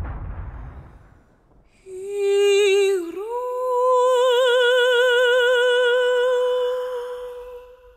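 The tail of a deep boom fades out over the first second or so. Then, about two seconds in, a wordless female voice enters: it sings a note, dips briefly, rises, and holds one long note with vibrato that fades away near the end.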